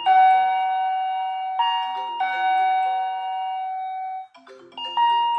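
Wireless video doorbell's chime playing a two-tone ding-dong, a higher note followed by a lower, longer-held note. It repeats, with a short pause a little past four seconds before the tune starts again.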